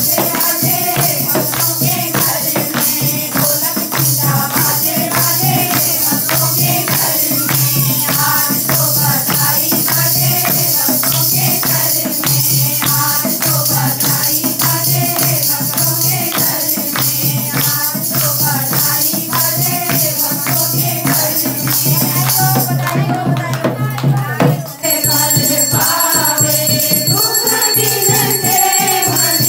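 Group of women singing a Hindi devotional kirtan song to a dholak drum and hand clapping that keep a quick, even beat. About 25 seconds in it cuts abruptly to a different passage of group devotional singing.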